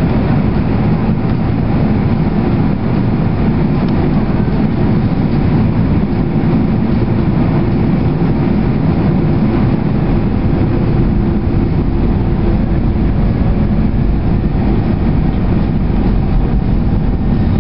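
Steady roar of engines and rushing air inside a Boeing 767's passenger cabin, heard from a window seat, with a faint low hum underneath, as the airliner descends on approach with its flaps extended.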